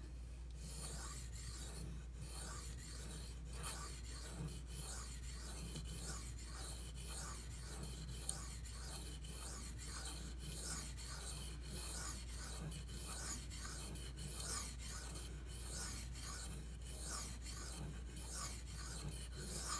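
Steel knife blade being stroked across a wet Venev bonded diamond stone, 1200 grit side: faint scratchy strokes repeating at an even rhythm as the edge is sharpened.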